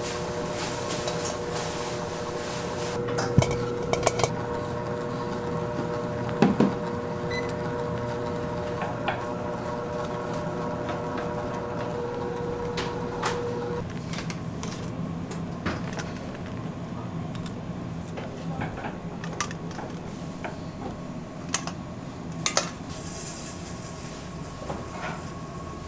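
Kitchen prep sounds from a small paring knife hulling fresh strawberries and the berries going into stainless-steel bowls: scattered clicks, taps and clinks over a steady machine hum, whose held tone stops about halfway through. Near the end, granulated sugar pours into a stainless-steel bowl with a brief hiss.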